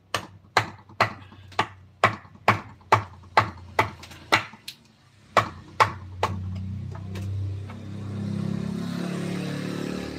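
Mallet striking a wood-carving chisel, about fourteen sharp blows at roughly two to three a second, with a short break near the fifth second. After about six seconds a steady low hum with a hiss takes over, like a small motor running.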